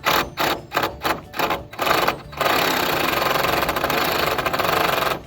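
Power driver (drill or impact driver) driving a screw into metal roofing: a rapid series of short trigger bursts, then a steady run of about three seconds that cuts off abruptly.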